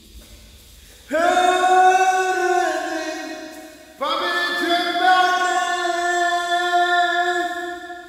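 Music with a voice singing long held notes in two phrases. The first comes in about a second in and fades out by about four seconds; the second starts right after and is held until near the end.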